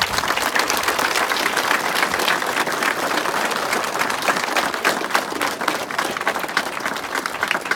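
Crowd applauding, a long round of dense clapping that thins a little near the end.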